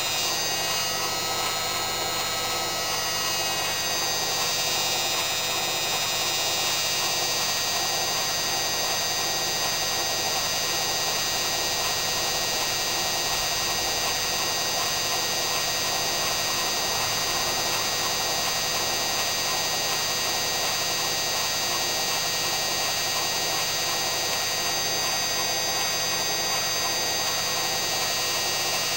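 Hoover washing machine spinning, its electric motor (a donor from a Candy Aliseè) giving a steady whine over the drum's rush; the whine shifts in pitch for the first few seconds, then holds steady.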